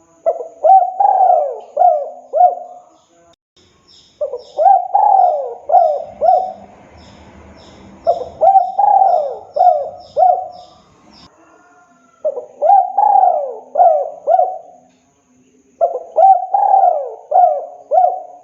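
Spotted dove cooing its song: five phrases of four to five quick falling coos, one phrase about every four seconds. Faint high chirps from another small bird run through the middle.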